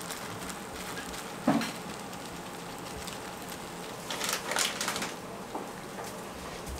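Food-preparation sounds over a steady background hum: a short sound about a second and a half in, then a cluster of short scraping, crackling strokes about four to five seconds in.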